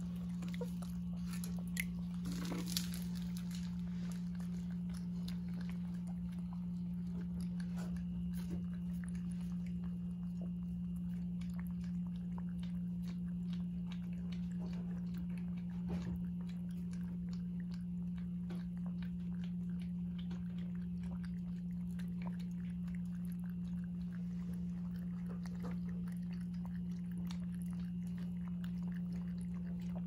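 Jindo puppies lapping water from plastic bowls: many small wet clicks and slurps, over a steady low hum.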